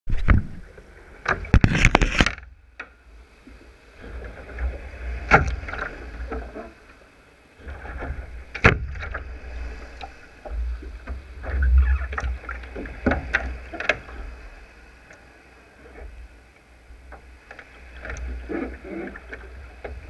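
Wind rumbling on the microphone of a camera mounted on a kayak's deck, with scattered sharp knocks and rattles as the camera is adjusted and the paddle and gear are handled against the hull. The loudest cluster of knocks comes about two seconds in.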